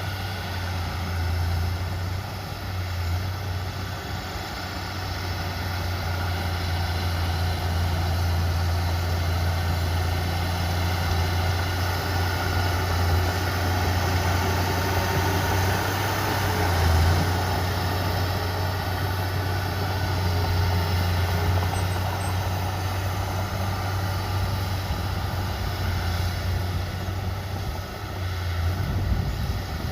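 Heavy diesel earthmoving machinery running steadily with a strong low engine hum, swelling briefly a little past halfway and again near the end.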